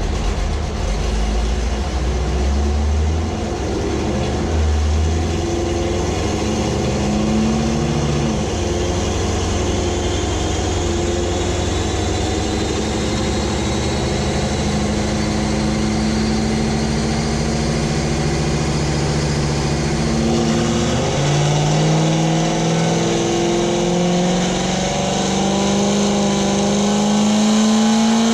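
Car engine running steadily with small changes in revs. About two-thirds of the way through the revs drop, then the pitch climbs steadily as the car accelerates.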